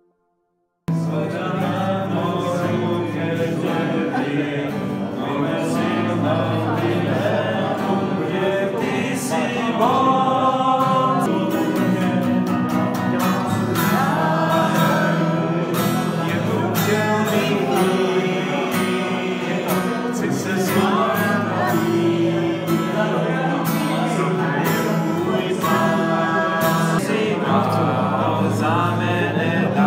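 A group of people singing a worship song together, accompanied by strummed acoustic guitar; it starts suddenly about a second in.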